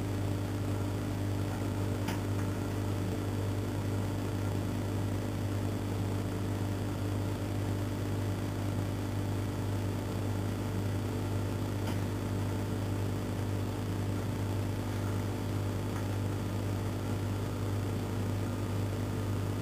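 A steady low mechanical hum, unchanging throughout, with two faint clicks about two seconds in and again near twelve seconds.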